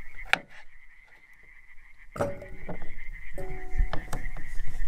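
Metal cookware clanking as a pot is handled over a campfire. Two knocks, about two and three and a half seconds in, each leave a short ringing tone.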